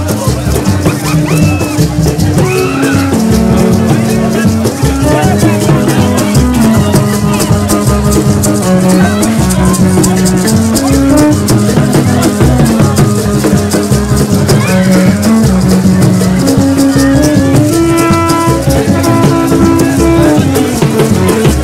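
Crowd street music: a gourd maraca shaking steadily and fast under held horn notes that step up and down in pitch.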